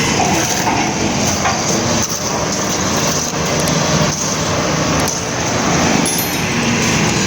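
Road noise from slow, jammed traffic: vehicle engines running, with a few short knocks.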